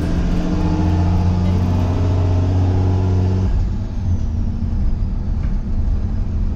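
The school bus's 24-valve Cummins diesel engine running under way, a steady low drone that eases off about three and a half seconds in; a connector section of its exhaust pipe has fallen off.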